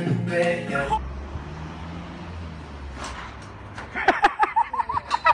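Music with singing cuts off about a second in, leaving a low steady street rumble. From about four seconds in, a person laughs in quick high-pitched bursts.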